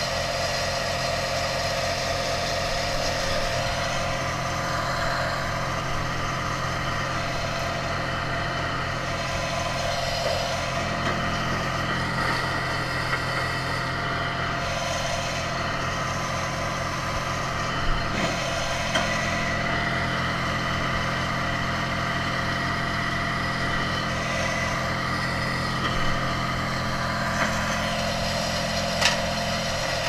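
An engine idling steadily with a regular low throb, and a few light knocks now and then.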